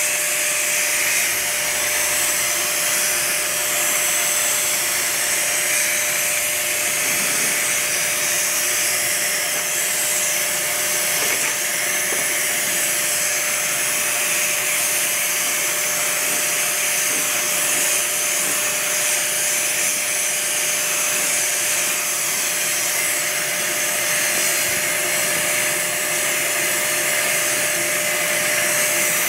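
DYC Dip Sprayer's turbine running steadily: a constant whine over a rush of air through the hose and spray gun while thinned Plasti Dip is sprayed.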